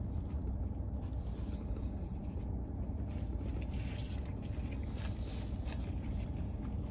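Steady low hum of a car running inside its cabin, with soft chewing and faint rustling as a burger is eaten, the rustling strongest a little past the middle.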